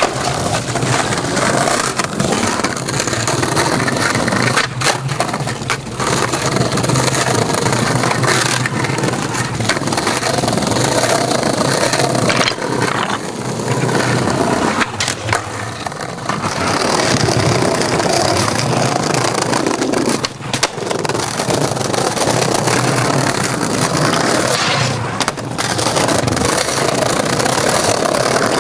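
Skateboard wheels rolling over rough brick and concrete paving, a loud, steady grinding rumble. It breaks off abruptly every few seconds and starts again.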